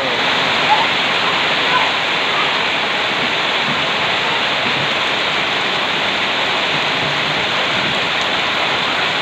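Heavy rain falling, a steady loud hiss that does not let up.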